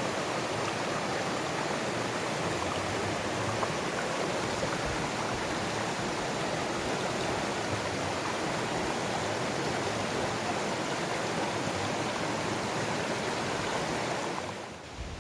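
Mountain stream water rushing steadily, easing down a little near the end.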